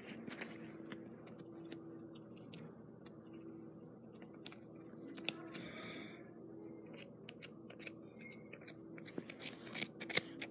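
Scissors snipping and clicking at a stuffed toy's fabric that will not cut through, in scattered separate snips that come thicker near the end.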